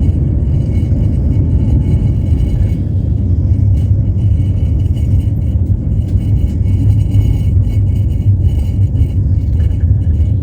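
Passenger train running along the track: a steady low rumble of the wheels on the rails.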